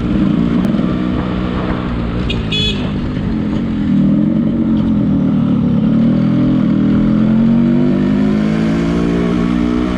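Yamaha RX135's single-cylinder two-stroke engine running while the bike is ridden, its note rising and falling a little with the throttle. A brief high horn beep sounds about two and a half seconds in.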